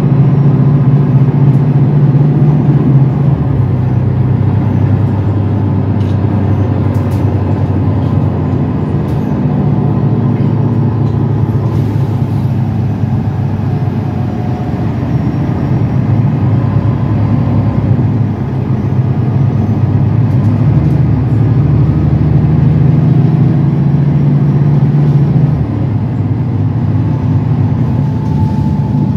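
Mercedes-Benz Citaro city bus's diesel engine and drivetrain heard from inside the passenger cabin while it drives, with steady road noise. The engine hum strengthens in the second half, then drops off abruptly about three and a half seconds before the end.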